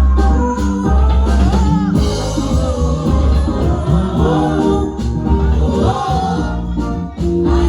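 Gospel choir anthem: voices singing over a band with a drum kit and a heavy bass line, drum strikes falling on a steady beat.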